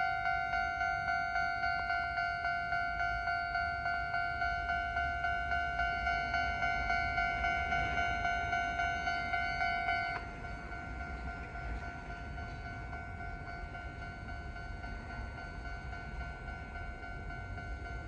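Japanese railway level-crossing alarm ringing in quick repeated strikes, about two or three a second. About ten seconds in it cuts down suddenly and rings on fainter and steadier, at a slightly lower pitch.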